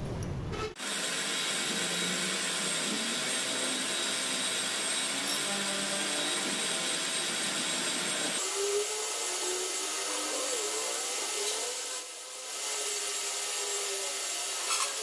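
Grinding machine running, its abrasive wheel grinding a heat-treated steel splined shaft under coolant: a steady grinding hiss that cuts in abruptly just under a second in and changes character about eight seconds in, when a wavering tone joins it.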